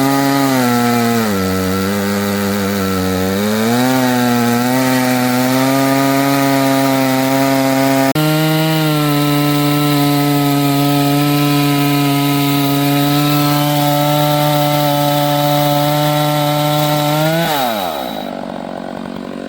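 Stihl two-stroke chainsaw ripping a log lengthwise in an Alaskan chainsaw mill. The engine pitch sags under load for a couple of seconds early on, recovers and holds steady, then drops away sharply near the end as the throttle is let off.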